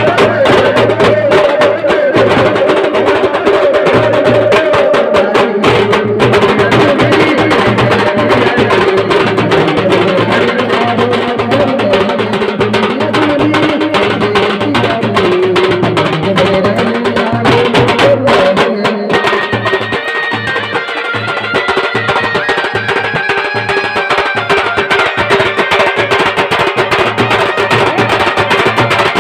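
Live Adivasi Holi Gher folk music: fast, dense drumming with clacking percussion and a wavering melody line carried over it, played for a circle dance.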